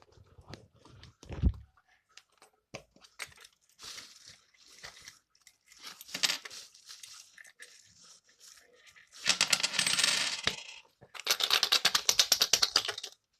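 Small copper coins clinking in and against a plastic Kinder Egg capsule as some are taken out, with a couple of dull knocks early on handling. Later the coin-filled capsule is shaken in two rapid rattling runs, about a second and then about two seconds long, the loudest sounds.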